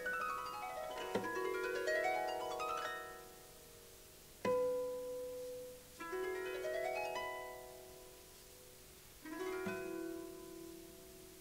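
Solo harp playing the closing bars of a harp interlude. Rising arpeggiated runs of plucked notes about a second in, six seconds in and near the end, with a single loud chord between them. Each is left to ring and fade.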